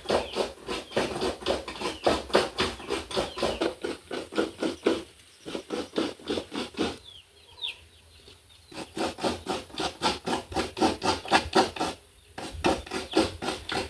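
Coconut being scraped by hand: a steady run of rasping strokes, about three a second, that pauses for a few seconds midway and briefly near the end.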